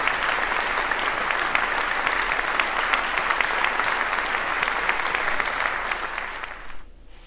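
A crowd of people applauding, many hands clapping steadily, fading out near the end.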